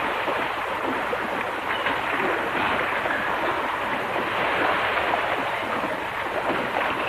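A steady rushing noise, with faint small knocks in it.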